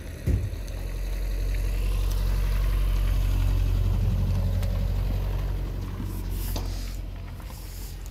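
VW 1.6 TDI (CAY) four-cylinder common-rail diesel engine idling steadily, with a brief knock near the start. It grows louder over the first few seconds and eases off near the end.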